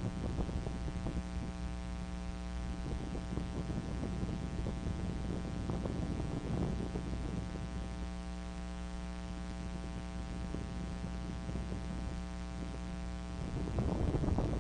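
Steady electrical hum in the nest camera's audio, a stack of even tones over a faint hiss. Near the end the hum fades and a louder rustling noise comes up.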